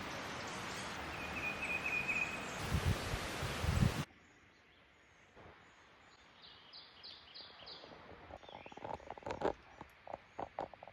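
Wind blowing across the microphone with a brief bird trill. About four seconds in it cuts to quiet outdoor ambience, where a bird chirps a quick series of short high notes and a few soft taps follow.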